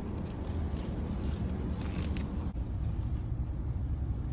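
Steady low rumble of a car on the road, with a brief dropout about halfway through.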